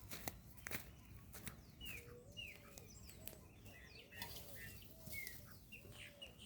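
A faint chorus of birds, a flock of chopi blackbirds calling with many short, curved whistled notes. A lower arched note repeats about once a second beneath them, and there are a few sharp clicks.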